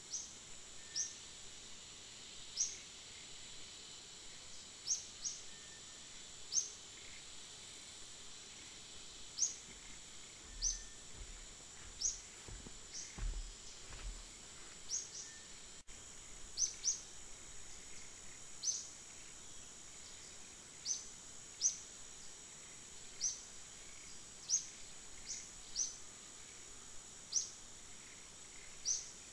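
Outdoor ambience: a steady, high-pitched insect drone, with short, high chirps repeating every second or two and a brief low rumble around the middle.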